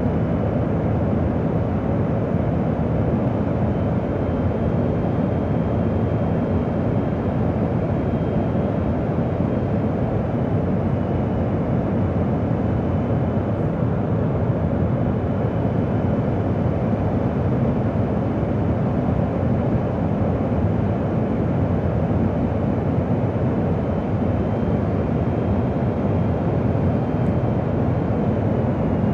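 Steady cabin noise inside a KC-135 Stratotanker in flight: the even rush of its CFM F108 turbofans and the airflow over the airframe, with a faint high whine.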